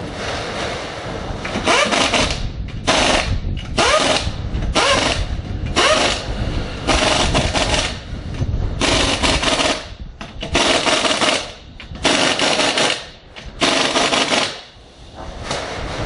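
Pneumatic impact wrench hammering on a car's wheel lug nuts, in about ten short rattling bursts with brief pauses between.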